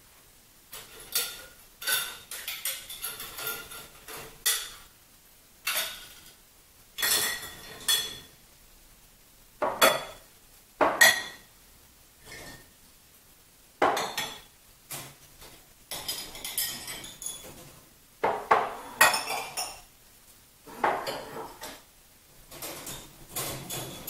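Dishes clinking and clattering as they are lifted out of a dishwasher rack and set into a cupboard, in short bursts every second or two.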